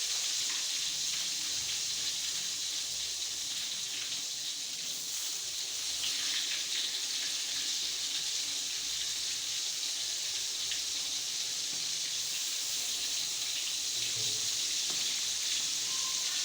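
Tempeh frying in hot cooking oil in a pan: a steady sizzle with small scattered crackles.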